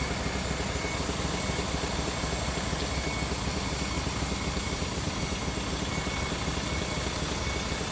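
Prime mover truck's diesel engine running steadily as it reverses toward its trailer for coupling, with a reversing beeper pulsing at an even pace.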